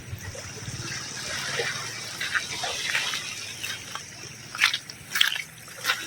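Sea water washing over the shore, with gurgling and several sharp splashes in the last second and a half.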